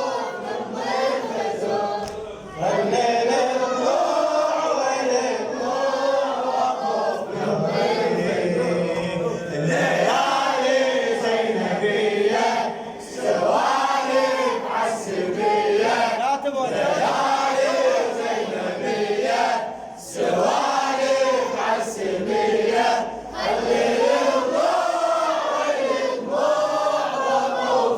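A chorus of mourners singing a Shia latmiya refrain together, unaccompanied. It comes in phrases of two or three seconds, each separated by a short pause for breath.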